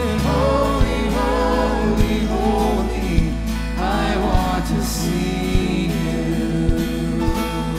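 Live worship band playing a song: acoustic guitar, electric bass and a steady drum beat under a male lead vocal.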